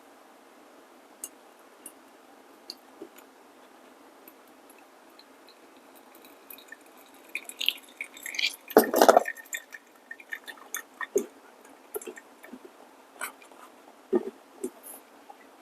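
Coffee brewing gear being handled: scattered light clicks and knocks of plastic and glass pieces being set in place, with a short burst of crinkly rustling and clatter about nine seconds in.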